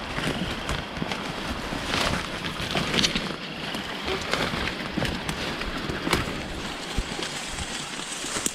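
Footsteps and rustling through forest undergrowth, with irregular crackles of leaves and twigs underfoot.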